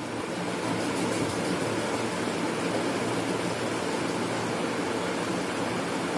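Steady rushing background noise with a faint low hum underneath, even in level throughout.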